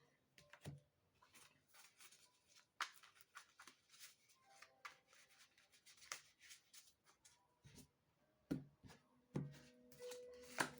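Faint, scattered soft taps and rustles of tarot cards being handled and laid out, a few sharp ticks spread over several seconds against a quiet room.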